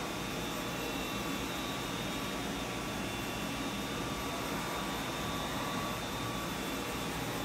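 Doosan Mynx 5400 CNC vertical machining center running while its spindle head travels along the vertical axis. A steady machine hum with several faint, steady high whines.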